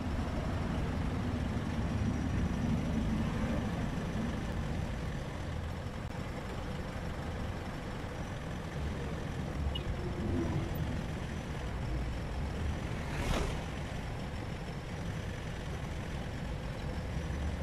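Steady low rumble of idling and passing vehicles, with a short hiss about thirteen seconds in.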